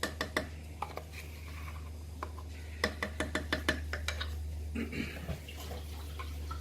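Spoon clinking and scraping against a crockpot as tomato paste is dolloped in, with a quick run of taps about three seconds in. A steady low hum underneath.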